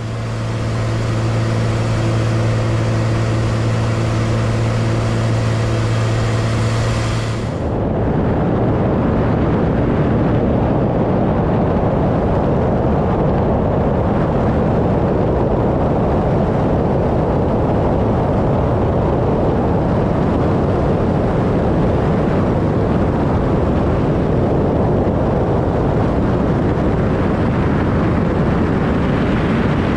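Cessna 185 floatplane's piston engine and propeller heard from inside the cabin: a steady, loud drone for about seven seconds, then the pitched drone falls away and a loud, even rush of engine and airflow noise carries on.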